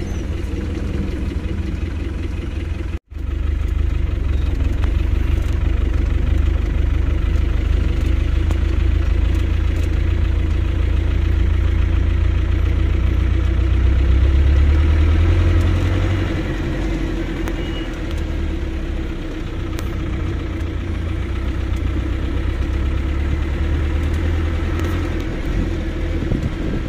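Engine and drivetrain of an off-road 4x4 driving slowly, heard from on board as a steady low rumble. The sound cuts out briefly about three seconds in.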